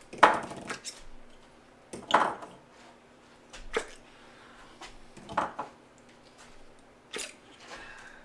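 Metal objects being handled, clanking and clattering in about five separate knocks a second or two apart, with quieter rustling between them.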